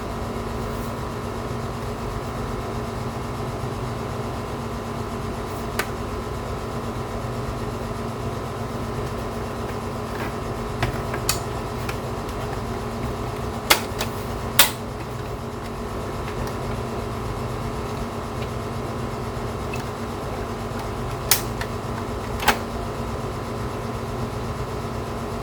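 Air conditioner running with a steady hum. Over it come scattered sharp clicks and snaps of a DVD drive's casing being worked on by hand as its top case is pried off; the loudest are two about halfway through and two more near the end.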